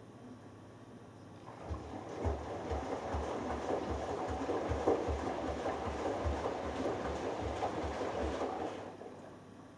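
Hoover Dynamic Next DXA610IW3 washing machine on its delicates wash: the drum turns for about seven seconds, sloshing the water and laundry with a regular low thud two or three times a second, then stops near the end for the gentle cycle's rest pause.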